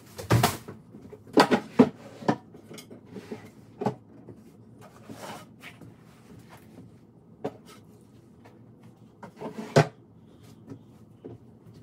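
Scattered knocks and clatter of household things being handled, shut and set down while cleaning a room, a dozen or so sharp strikes at uneven intervals, the loudest near the start and about ten seconds in.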